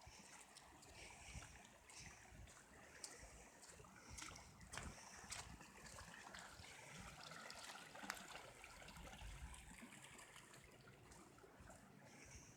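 Faint rushing and trickling of floodwater running along a street and sidewalk, with scattered sharp clicks and low rumbles.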